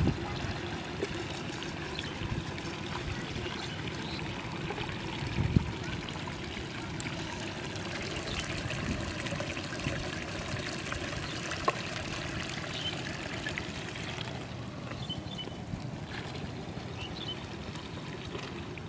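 Shallow paddy water trickling and lapping steadily, with one louder splash about five and a half seconds in.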